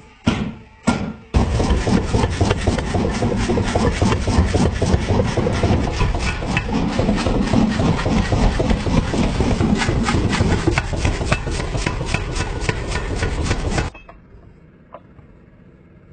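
A few sharp knocks, then about twelve seconds of fast, continuous rasping strokes from a hand tool cutting or abrading material, such as a saw or file, stopping abruptly near the end.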